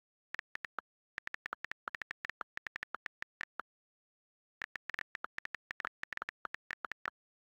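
A rapid, irregular series of short clicks in two runs about a second apart, each with dead silence between the clicks.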